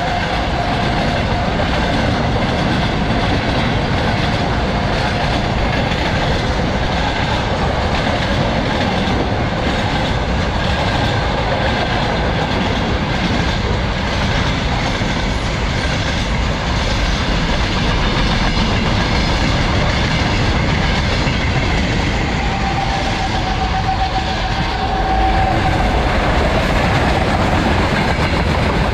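Freight wagons of a passing freight train rolling by at speed, a steady rumble with the wheels clattering over the rail joints. A thin whining tone rises out of it briefly at the start and again about 22 seconds in.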